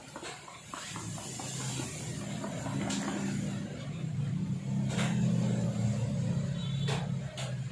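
Low motor hum that swells over the first five seconds and drops away near the end, with a few sharp clicks over it.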